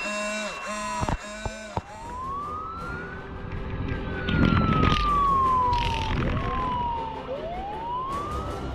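Electronic fire-truck siren wailing in long, slow rising and falling sweeps. Before it comes a pulsing electronic tone with a few sharp clicks in the first two seconds, and a rushing noise swells briefly around the middle.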